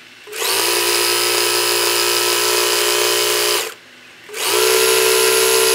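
Electric sewing machine running at a steady speed as it stitches a seam through thick fabric. It stops for a moment about three and a half seconds in, then starts again, winding up to speed each time.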